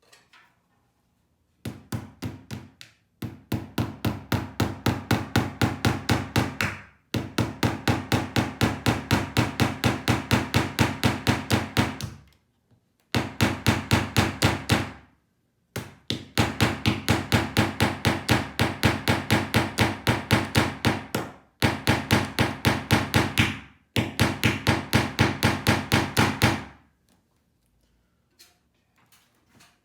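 Hammer rapidly tapping small nails through a 3D-printed plastic holder into a wall: several runs of quick, evenly spaced sharp strikes, about five a second, broken by short pauses.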